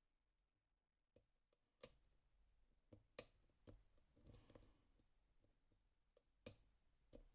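Faint, scattered clicks of lock picking tools working in an M&C Minos lock: about half a dozen separate irregular clicks, with a brief rustle about four seconds in.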